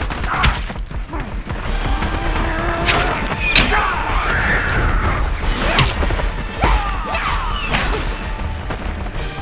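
Action-film fight sound effects: a string of sharp hits, thuds and crashes, about seven spread over several seconds, over a steady low rumble of score.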